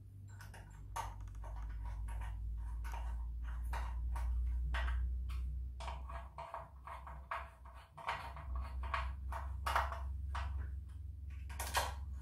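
Plastic safety guard being screwed onto a string trimmer head with a small hand tool: a run of irregular small clicks, scrapes and plastic knocks, over a steady low hum.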